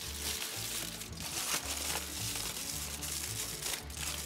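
Aluminium foil crinkling as a sheet is pulled off the roll and spread out, over background music with a steady bass line.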